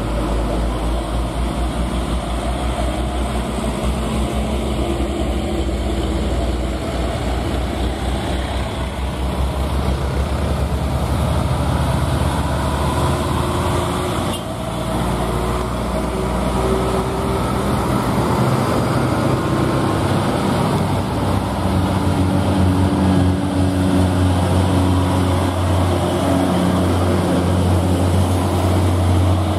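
Heavy diesel trucks, Hino among them, driving past one after another, their engines a steady low drone under load. The drone grows louder in the second half as a truck passes close by.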